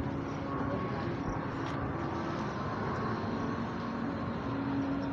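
Road traffic: a steady hum of passing vehicles and engines.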